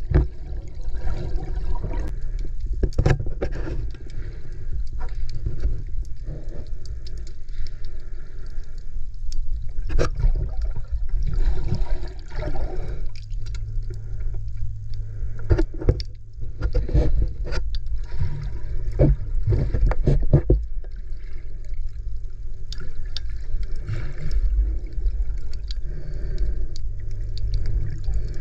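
Water sloshing and gurgling around an underwater camera, a muffled, mostly low rush with scattered sharp clicks and knocks throughout.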